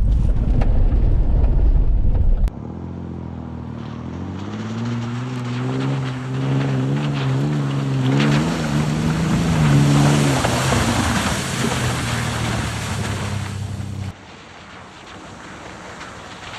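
A 4x4's engine revving hard and unevenly under load with a rushing hiss of tyres churning in snow, its pitch climbing and wavering, after a loud low rumble that stops abruptly in the first few seconds.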